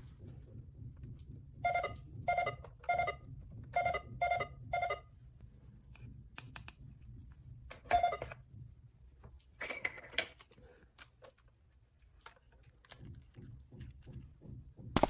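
Short electronic beeps from a toy's buttons: six quick beeps in two groups of three, then one more a few seconds later, with plastic clicks and taps of handling in between.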